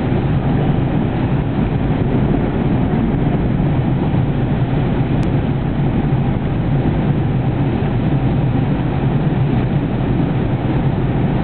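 Tropical-storm wind buffeting the microphone over heavy surf breaking on the beach: a loud, steady rumbling rush with no letup.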